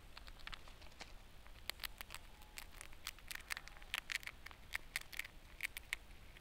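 Grey squirrel eating food close to the microphone: rapid, irregular crisp crunching clicks, sparse at first and coming thicker from about two seconds in.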